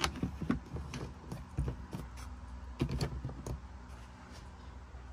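Hard plastic lid of the tool storage compartment in a Land Cruiser 70's cargo-area side trim being handled and pushed shut: a quick series of clicks and knocks that stops after about three and a half seconds.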